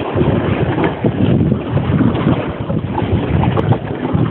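Gusty wind buffeting the microphone, over choppy water splashing around a kayak as it is paddled.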